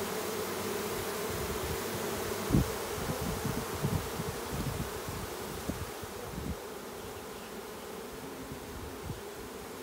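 Honeybee swarm buzzing steadily at the hive box, a continuous hum. A few low thumps or bumps come about two and a half to six and a half seconds in, the first the loudest.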